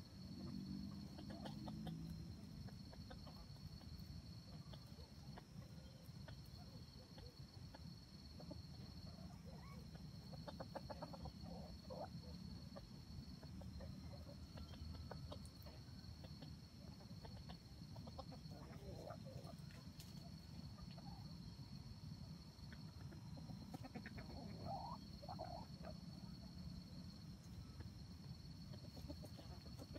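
Faint, soft clucking from foraging red junglefowl, a few scattered calls, over a steady high insect drone that pauses every few seconds.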